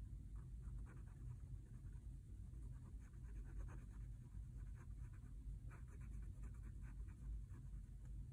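Fine-tip pen scratching on a paper tile in many short, quick strokes, filling in inked lines. A steady low hum sits underneath.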